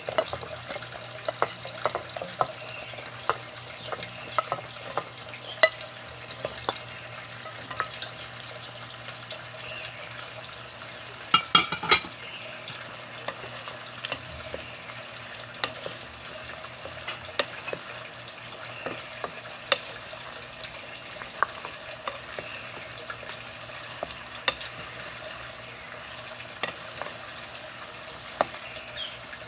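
Parboiled chicken feet frying in hot oil with garlic and onion, a steady sizzle, with a utensil clicking and scraping against the pan at irregular moments as they are stirred. A brief cluster of louder clanks comes a little before the halfway point.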